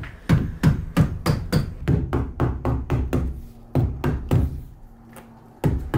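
Mallet tapping rubber Trim-Lok edge trim onto the sheet-metal lip of a van door's window cutout: quick sharp strikes, about three or four a second, with a short pause near the end before a few more.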